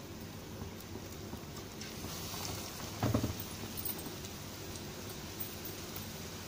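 Battered green chillies (mirchi bajji) deep-frying in hot oil, a steady sizzle and crackle, with one dull knock about three seconds in.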